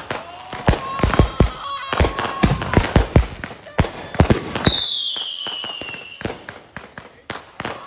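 Fireworks going off in quick, irregular bangs and pops, with a woman yelling in places. About two-thirds of the way through comes a shrill whistle that falls in pitch for a second and a half.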